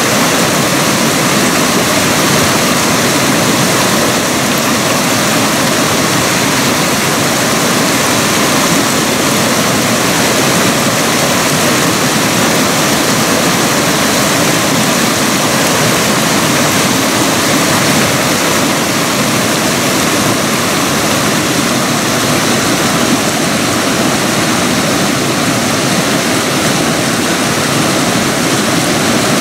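Mountain creek rushing over rocks in whitewater rapids: a loud, steady, unbroken rush of running water.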